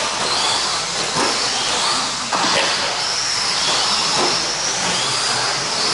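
Several 1/10-scale stock short course RC trucks racing, their 17.5-turn brushless electric motors giving a faint high whine that rises and falls over a steady hiss from the tyres on the clay, with an occasional knock.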